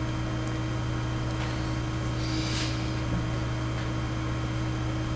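Room tone: a steady low electrical hum under an even hiss, with one brief soft rustle about halfway through.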